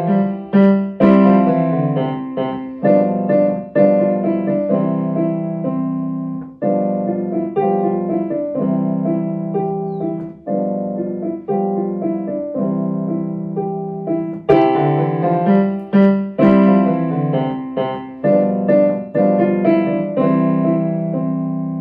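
Digital piano played solo: a melody in the right hand over held bass notes and chords, with notes struck in a steady flow throughout.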